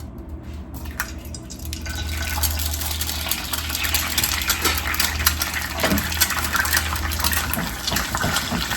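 An egg frying in a hot non-stick skillet: a crackling sizzle full of small pops that gets louder about two seconds in and then holds steady.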